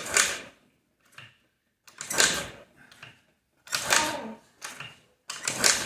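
Honda Metropolitan scooter being kickstarted: four hard kicks, about one every one and a half to two seconds, each a short burst of the kick lever and the 49 cc four-stroke engine turning over. The cold engine does not catch between kicks, a hard winter start.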